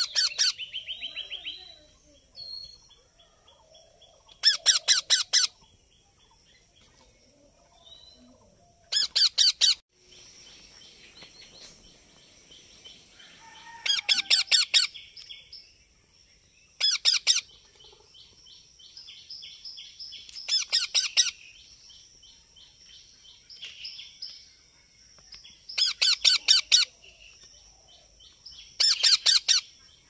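Young Indian ringneck parakeets calling: bursts of rapid repeated notes about a second long, eight times, roughly every four seconds.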